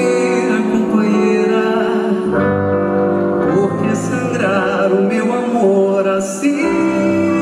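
Live song performance: a singing voice with vibrato over sustained instrumental accompaniment.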